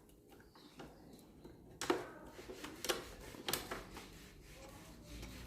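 Three light knocks and clicks from hand tools against the wooden speaker cabinet, about two, three and three and a half seconds in, while a screw is fitted into the plywood.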